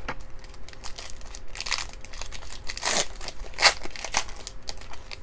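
Foil wrapper of a Donruss Optic basketball card pack crinkling as it is handled and torn open, a run of sharp crackles with the loudest about two-thirds of the way in.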